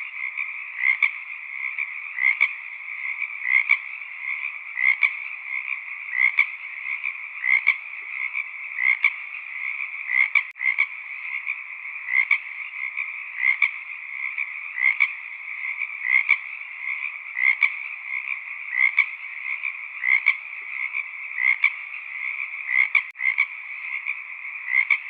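A chorus of frogs calling: a steady, dense trilling layer with one louder call repeating at an even pace, roughly every second and a bit. The sound cuts out for an instant twice.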